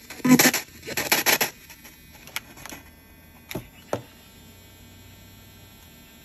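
Handling of a ghost box radio being unplugged and lifted off the bench: two loud noisy bursts of about half a second each in the first second and a half, then a few sharp clicks around three and a half to four seconds in. After the clicks only a faint low hum remains.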